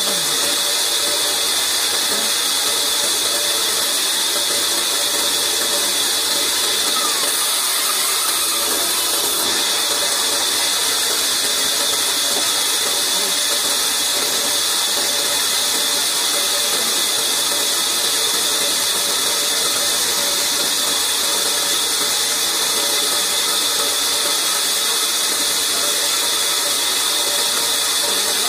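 Large band saw running without cutting, a steady high whirring hiss that holds even throughout.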